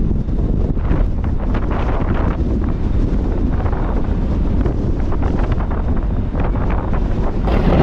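Wind buffeting the microphone on the open deck of a moving ferry: a steady, dense low rumble. Just before the end the sound turns abruptly brighter and hissier.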